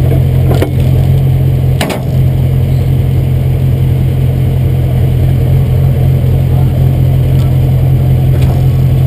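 Duramax diesel pickup engine idling loudly through a straight-up exhaust stack, a steady low rumble. Two short clicks come about half a second and two seconds in.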